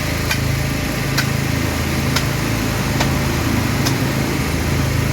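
Small engine running steadily, with a sharp click or tap about once a second over it.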